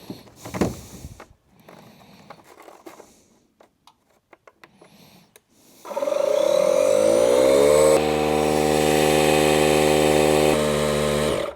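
Air compressor motor starting about six seconds in, spinning up over a couple of seconds and then running steadily before cutting off suddenly near the end. It is putting air into a newly fitted air line to test it for leaks. Faint clicks and handling sounds come before it.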